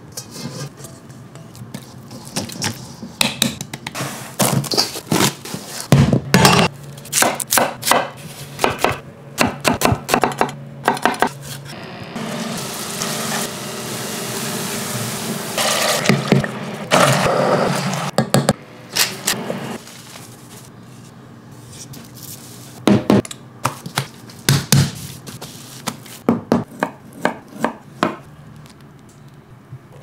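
A run of pizza-making sounds: many short knocks and clinks of utensils on stainless steel bowls and pans. About halfway there are a few seconds of steady hissing from tomato sauce cooking in a saucepan and being stirred with a wooden spoon, then scattered sharp taps.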